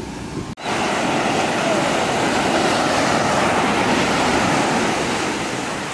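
Surf washing onto a sandy beach: a steady rush of waves that starts abruptly about half a second in.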